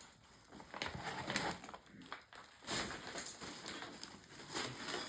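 Plastic gift packaging and wrapping rustling and crinkling in irregular bursts as items are handled, loudest a little under three seconds in.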